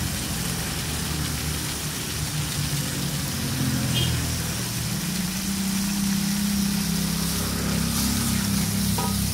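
A steady low engine hum, its pitch shifting slightly and settling a little higher about halfway through, over the faint sizzle of chili sauce simmering in a wok.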